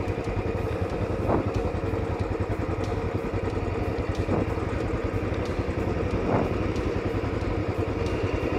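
Royal Enfield Classic 500's single-cylinder engine running steadily at low revs as the motorcycle creeps along at low speed, a fast, even pulsing.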